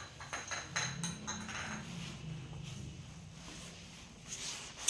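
A cat knocking its small bowl about on a tiled floor: a few scattered clinks and clatters. The cat is rattling the bowl to ask for milk.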